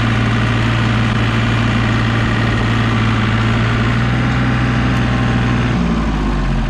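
Compact loader tractor's engine running steadily under the operator's seat. Its note drops about six seconds in as the engine is throttled back.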